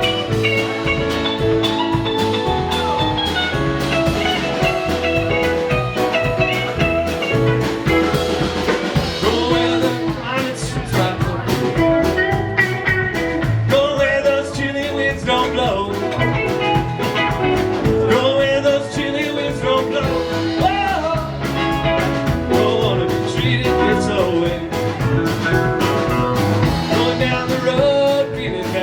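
A rock band playing live, an instrumental jam: a lead electric guitar gliding between notes over bass and a drum kit.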